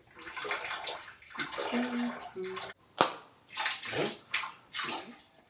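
A light switch clicks off sharply about three seconds in, among irregular handling and movement noises in a small tiled bathroom.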